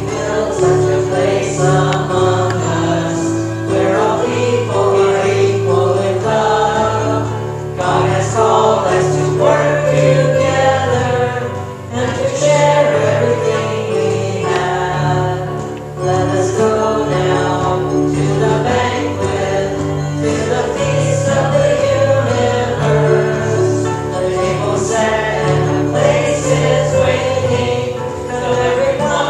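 A small worship band playing and singing a hymn: voices singing along with a played acoustic stringed instrument.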